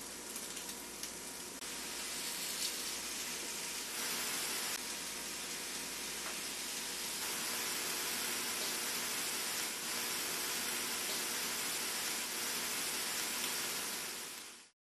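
Raw sausage patties sizzling on a hot electric griddle: a steady hiss that gets louder in steps during the first few seconds, then cuts off just before the end.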